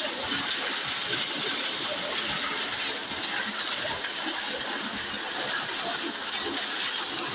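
Heavy rain falling steadily, with water pouring off a roof and splashing onto containers below.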